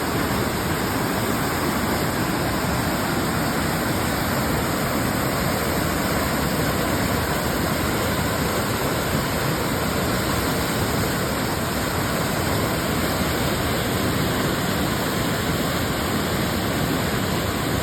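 Waterfall pouring, a steady, even rush of falling water with no breaks or changes.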